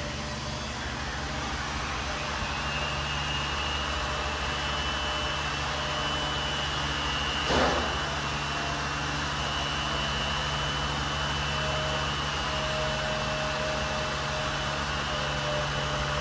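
Steady fan-like rushing noise with a low hum and a thin high whine that comes in about two seconds in. It is the load-test rig pulling close to 1,000 amps from a 12 V lithium iron phosphate battery bank.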